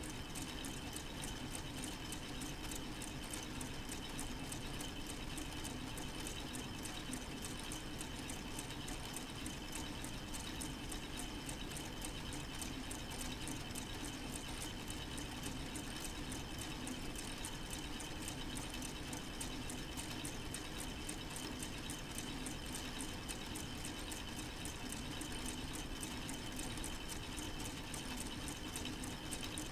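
K'nex plastic model four-cylinder engine running steadily under solar-powered drive: rapid, even clicking of plastic gears and linkages over a constant motor hum.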